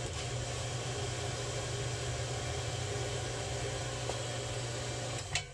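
A machine running with a steady low electric hum and an even hiss, which stops suddenly with a click near the end.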